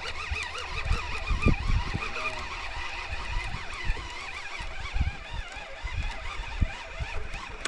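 Wind buffeting the microphone in uneven gusts, with a faint high warbling underneath.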